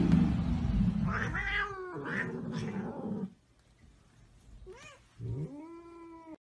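Domestic cats caterwauling: a low growl with two yowls over it for about the first three seconds, then, after a lull, a short meow and one long drawn-out yowl near the end.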